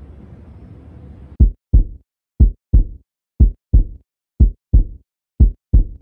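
Heartbeat sound effect: five loud lub-dub double thumps about a second apart, starting about a second and a half in, with the background sound cut to silence between them.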